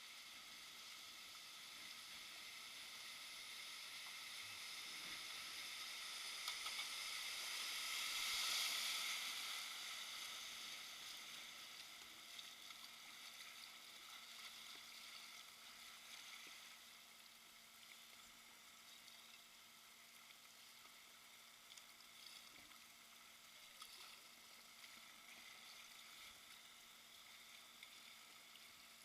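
Shallow river rapid rushing, a steady hiss that swells to its loudest about eight seconds in and then eases back.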